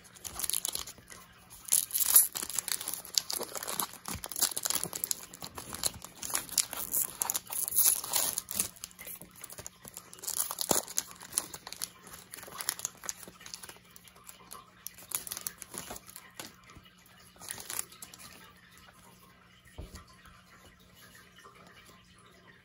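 Foil wrapper of a 2020 Absolute football card pack being torn open and crinkled as the cards are pulled out, in irregular crackling bursts. After about 18 seconds the crinkling dies down to faint rustling of the cards being handled.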